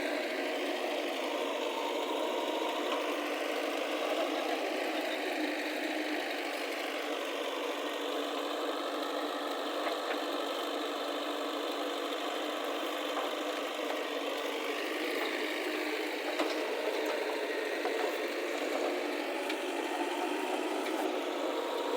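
Heavy diesel engine running steadily at a worksite, its pitch drifting slightly up and down as it works.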